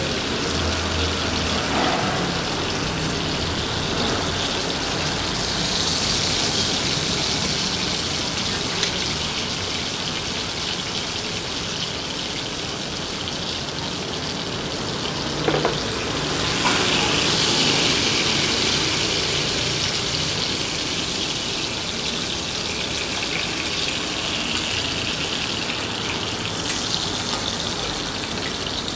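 Beef steak sizzling as it fries in melted butter in a nonstick pan, a steady hiss that swells about a fifth of the way in and again just past halfway. A couple of brief clicks just before the second swell.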